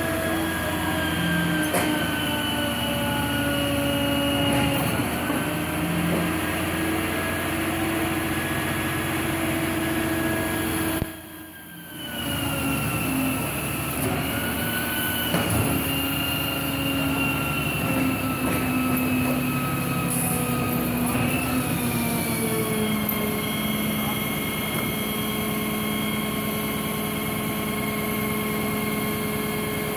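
Refuse collection truck running at the kerb with its hydraulic bin lifter and compactor working: a continuous engine and hydraulic whine whose tones slide up and down, with a few metallic knocks. The sound drops out briefly just before halfway, and in the last third the pitch steps down and holds steady.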